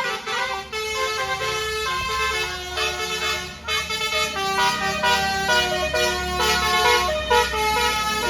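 A bus's basuri telolet horn playing a tune of held notes that change in steps, over the low rumble of the bus's engine.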